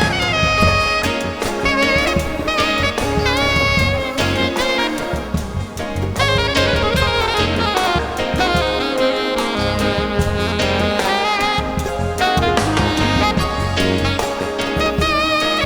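A live band playing an instrumental passage in a jazzy style: a wavering lead melody over a pulsing bass and drums.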